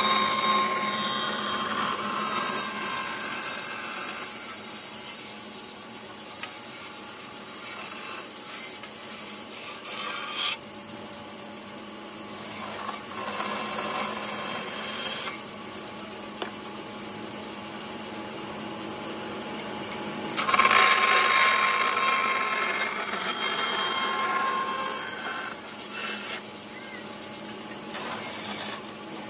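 A 20-inch Jet bandsaw with a 1¼-inch Resaw King blade cutting the curved outline of a dogwood spatula blank, over the steady hum of the running saw. The cutting comes and goes in several passes: a long one at the start, a short one in the middle, and the loudest a little past two-thirds of the way through.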